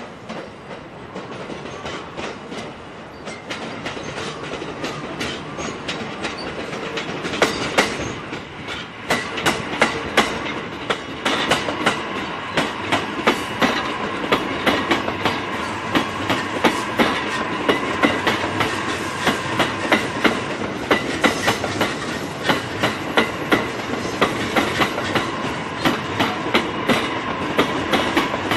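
JR East E657 series electric limited express train rolling past close by, growing louder over the first several seconds as it approaches. Once alongside, its wheels clack rhythmically and steadily over the rail joints as car after car goes by.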